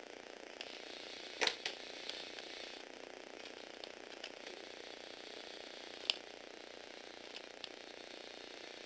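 Small electric gearbox motors of a Lego Technic remote-control car (Tamiya universal gearbox) whirring steadily as it drives, with scattered sharp clicks and knocks, the loudest about a second and a half in.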